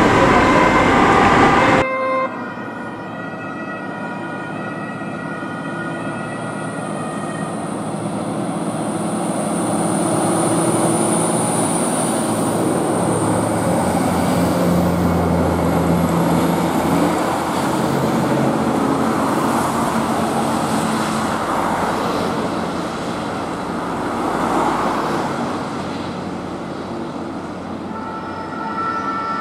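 Fire engines and an ambulance on emergency runs, German two-tone sirens sounding with their engines and road noise. The siren is loud for about the first two seconds and stops abruptly. Then comes a long stretch of engine and traffic noise that swells as the trucks pass, with fainter sirens, and the siren tones come back near the end.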